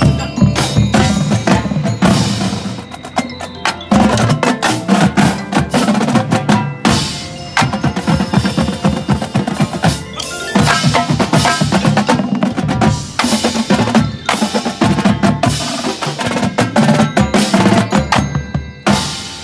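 A marching drumline of snare drums, multi-tenor drums and bass drums playing together in a fast, dense percussion passage. It cuts off suddenly near the end.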